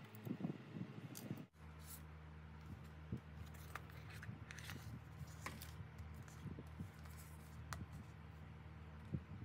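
Light clicks, ticks and scrapes of small tools working on a phone. A steady low electrical hum, like a small machine or mains-powered bench tool, switches on about a second and a half in.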